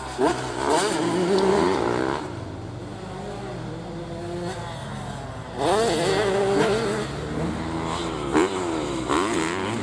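Grasstrack motorcycle engine revving up and down as the bike is ridden through corners, its pitch rising and falling again and again. It drops back for a few seconds mid-way, then comes loud again a little past halfway.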